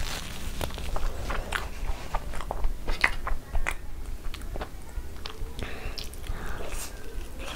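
Close-miked chewing of Indian sweets: irregular wet mouth clicks and smacks, several a second.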